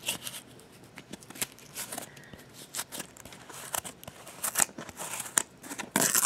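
Fingernails scratching and peeling cooled hot glue off cardboard: scattered small clicks and short scratches, getting denser and louder near the end.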